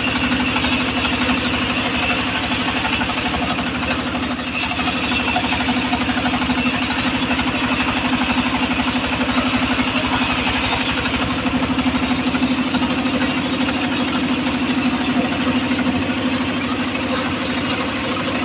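Engine of a home-built circular sawmill running steadily at a constant speed.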